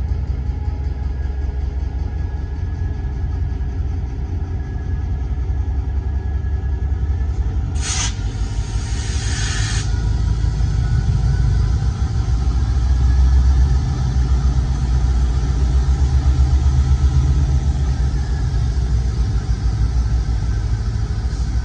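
CSX GP38-3 diesel-electric locomotive rumbling past at low speed while switching. About 8 seconds in, a sharp burst of air hisses from its air system for about two seconds.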